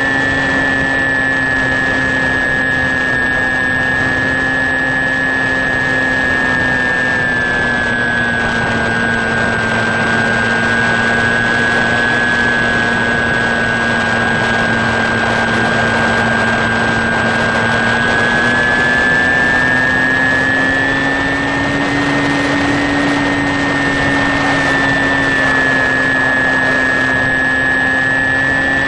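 The electric motor and propeller of an HK Sky Eye RC plane whining steadily in cruise, with wind rushing past the onboard camera. The pitch sags a little about eight seconds in and climbs back about ten seconds later.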